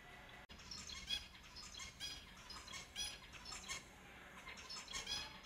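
Zebra finches calling: a quick run of short, nasal, pitched calls that starts about half a second in, eases off briefly near the end and then picks up again.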